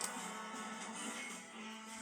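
Background music with sustained tones, guitar-like.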